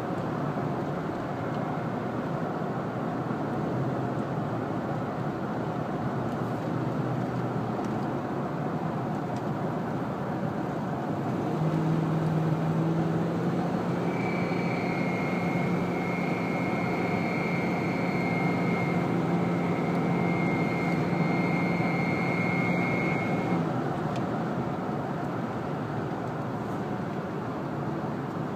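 1998 Ford Expedition's 4.6 V8 running with steady vehicle noise. About twelve seconds in, an odd steady humming drone comes in, joined a couple of seconds later by a high whine; both stop together a little over ten seconds later. The owner suspects a belt tensioner he installed two weeks earlier.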